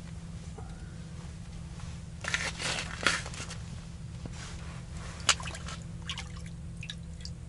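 Water splashing and dripping in an ice-fishing hole as a fish is pulled up through it by hand: a few short splashy bursts about two seconds in, then a sharp click and scattered small drips and clicks.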